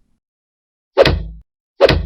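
Two alike punch sound effects, about a second in and near the end, each a sharp hit with a short deep thud behind it.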